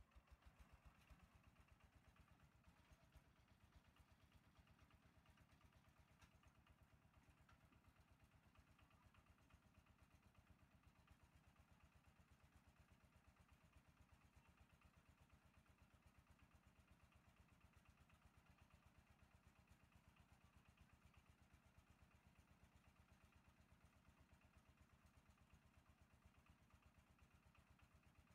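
A vehicle engine running steadily, its firing strokes coming as an even, rapid pulse.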